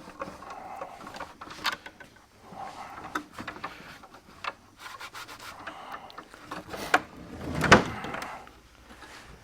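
Hand rubbing and scrubbing on a truck seat base, with irregular scraping strokes and scattered clicks and knocks. One louder knock comes about three-quarters of the way through.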